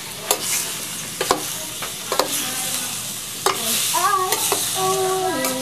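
Lizard meat frying in oil in a pan, sizzling steadily, while a utensil stirs it and knocks against the pan several times.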